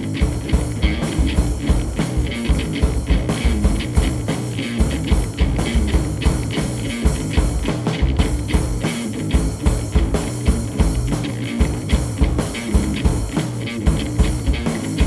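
Rock band playing, with a drum kit beating a fast, steady pattern under guitar.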